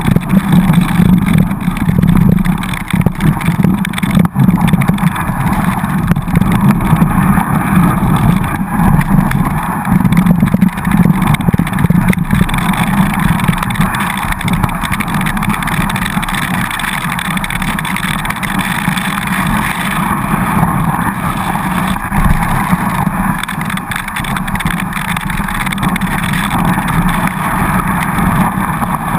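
Downhill skis sliding and scraping over packed, chopped-up snow, with wind rushing over the action camera's microphone. The noise is continuous, rougher and more uneven in the first half and a little smoother later.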